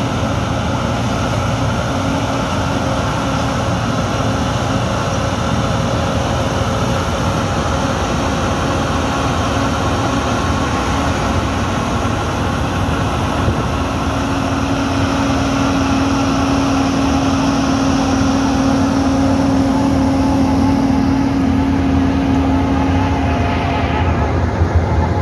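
Wirtgen W 100 H cold milling machine at work, its diesel engine running steadily under load as the cutting drum mills the asphalt road surface. It makes a continuous drone with a held hum that grows stronger about halfway through.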